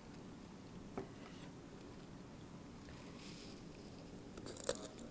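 Quiet close-up sounds of eating papaya salad by hand: soft clicks of fingers picking through the food, a brief hiss a little after three seconds, and sharp smacking clicks near the end as a bite goes into the mouth.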